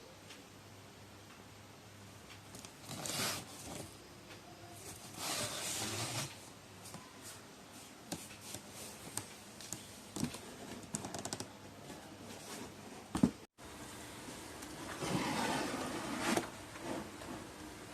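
Handling noises: short bursts of rustling and scraping, with scattered small clicks and a sharp knock about 13 seconds in.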